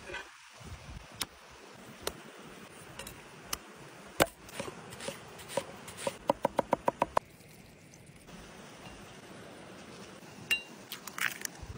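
Heavy cleaver striking a thick wooden cutting board while chopping onion: a few single knocks, then a quick run of about seven chops near the middle. A stream rushes steadily underneath.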